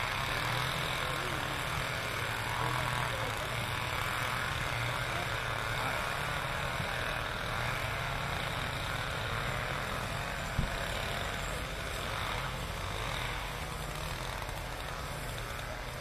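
A vehicle engine idling steadily under a broad hiss of background noise, with one sharp click about ten and a half seconds in.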